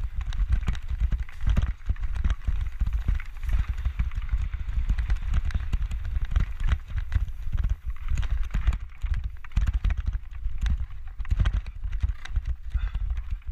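Mountain bike clattering and rattling over rocks and rough dirt on a fast descent, with dense irregular knocks from the tyres, frame and chain, over a heavy low rumble of wind buffeting the microphone.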